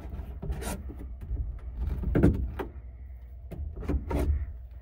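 Knipex pliers being lifted off hooks on a metal pegboard rack: a handful of metal clicks and clinks, the loudest about two seconds in, over a low steady hum.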